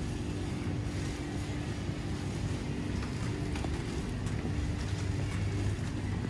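Supermarket ambience in an aisle of refrigerated display cases: a steady low rumble with a constant hum, and a few faint clicks.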